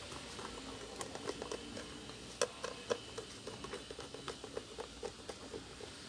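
Screwdriver driving a small screw into a circuit board inside a plastic humidifier housing: a run of light, irregular clicks and ticks, with one sharper click about two and a half seconds in.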